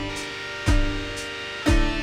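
Background music: sustained pitched notes over a strong low beat that lands about once a second.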